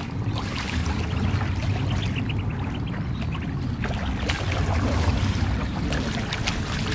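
Steady low rumble of wind on the microphone, with faint splashing from ducks swimming and flapping on the water and a few short, faint high calls.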